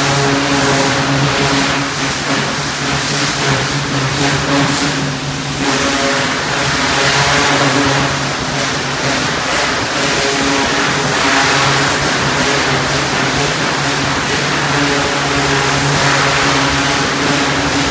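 Pressure washer running steadily with its engine drone, under the hiss of the high-pressure water jet hitting the slatted pen floors; the hiss swells and dips as the wand sweeps.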